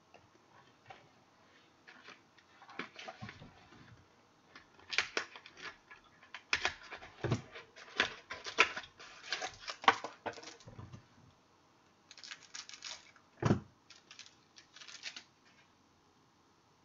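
Football trading cards and their pack wrappers being handled: irregular rustling, flicking and sharp clicks, with one louder snap late on.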